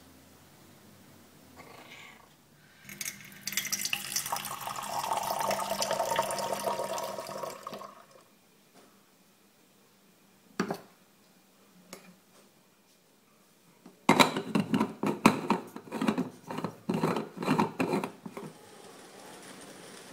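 Water running from a tap into a metal moka pot boiler for about five seconds, then a couple of single clicks and a quick run of metal clinks and taps as the stovetop moka pot and coffee tin are handled. A cat gives a short faint meow about two seconds in.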